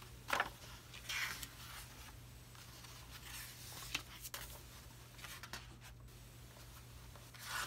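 Glossy pages of a hardback book being turned one after another: several short papery swishes.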